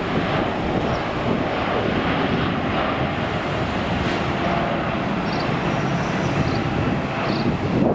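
Twin Rolls-Royce Trent 1000 turbofans of an Air New Zealand Boeing 787-9 at take-off thrust as the jet rotates and climbs out: a loud, steady jet noise.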